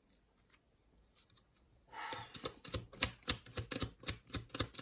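Near silence for about two seconds, then a deck of tarot cards being shuffled by hand: a quick, even run of crisp card snaps, about six a second.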